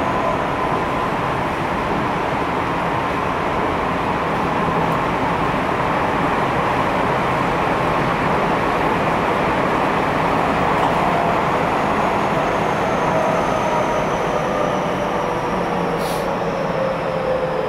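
Tokyo Metro 10000 series subway train running underground, heard from inside a car: a steady rumble of wheels on rail with the faint whine of the traction motors, whose pitch falls slightly over the last few seconds. A short click about sixteen seconds in.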